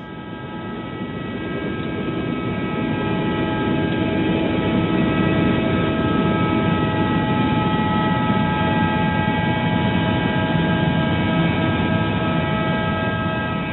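Helicopter in flight heard from inside the cabin: a steady rotor and engine rumble with a whine of several steady tones, swelling over the first few seconds and then holding level.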